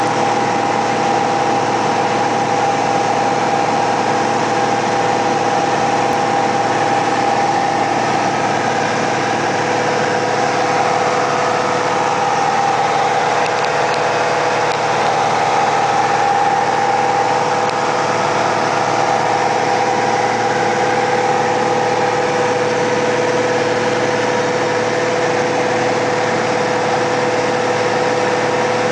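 Cabin noise of a Piper PA-28R Arrow in level flight: the single piston engine and propeller running at a steady, unchanging hum with a constant hiss of air over the airframe.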